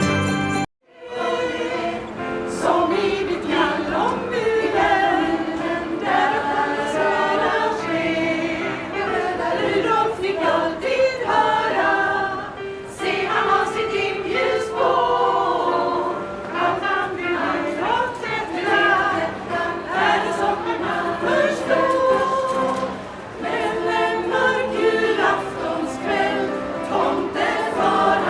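A choir singing a song, starting just under a second in after a brief silence.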